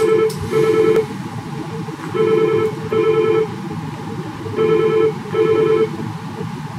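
Desk phone ringing in double rings: three ring-ring pairs, a little over two seconds apart.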